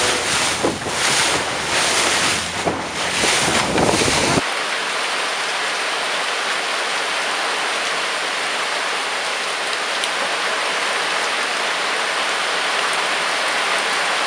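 Sea water rushing past a sailboat's bow, with wind buffeting the microphone. About four seconds in, this cuts to heavy tropical rain pouring steadily onto the water and the boat's deck, an even hiss.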